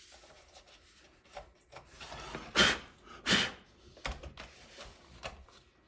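Styrofoam packing rubbing and scraping against the RC dump truck's body as stuck-on bits are picked off, with two louder scrapes near the middle and a few small clicks of handling.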